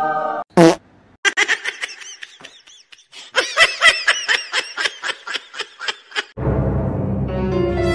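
High-pitched laughter, a quick run of repeated 'ha' bursts heard twice over, after a short sharp sound about half a second in. A loud low rumble starts near the end.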